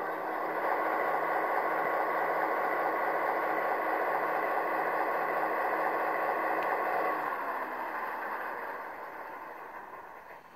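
Diesel engine sound from a Soundtraxx Tsunami 2 EMD decoder playing through the speakers of an HO scale MP15AC model locomotive. It runs loud and steady with a low hum, then the hum drops in pitch about seven seconds in and the engine sound fades away. This is the decoder's dynamic exhaust, which sounds louder under load and notches down as the load eases.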